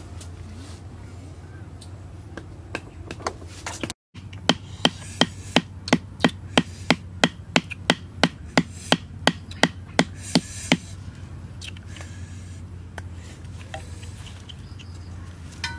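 A wooden stake being driven into the ground with a wooden stick: a steady run of about twenty sharp wood-on-wood knocks, roughly three a second, that stops after about six seconds.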